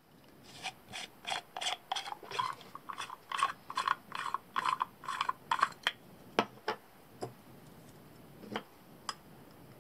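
Plastic threaded nut on a 40 mm waste-pipe fitting being unscrewed by hand: short plastic-on-plastic grating strokes, about three a second, for roughly six seconds, then a few light clicks and taps as the parts come apart.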